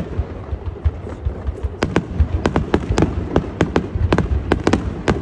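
Fireworks display: aerial shells and rising comets going off in a rapid, uneven string of sharp bangs, several a second, over a continuous low rumble.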